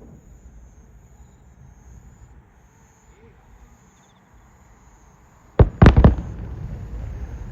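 Fireworks shells bursting: three sharp bangs in quick succession about five and a half seconds in, followed by a rolling rumble of echo. Before them there is only a low background rumble.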